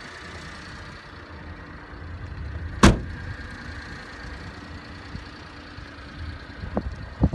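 Mitsubishi Minicab kei truck idling steadily. About three seconds in a cab door shuts with a single loud bang, and two lighter knocks follow near the end.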